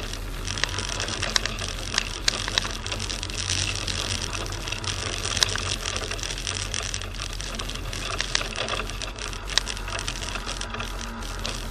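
Fiat Panda 4x4 driving on a snowy track, heard from its roof: a steady engine hum and running noise, with a fast rattle and scattered sharp clicks throughout.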